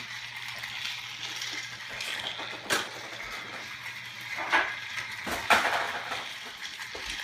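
Plastic pieces of a toy train set clicking and knocking together: a few sharp clacks, the clearest about three seconds in and two more between four and a half and five and a half seconds, with softer handling noises between them.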